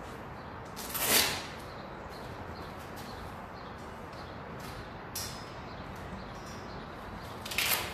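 Hook-and-loop wrist straps of boxing gloves being ripped open and pressed shut as the gloves go on: two short loud rips, about a second in and near the end, with a fainter one in between.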